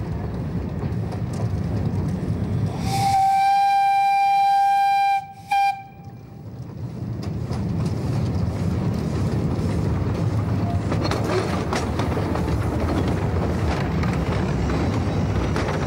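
A 600 mm gauge field-railway steam locomotive sounds its steam whistle in one steady blast of about two and a half seconds, then gives a brief second toot. The train then runs past with a rumble and the clatter of its wagons' wheels on the narrow-gauge track.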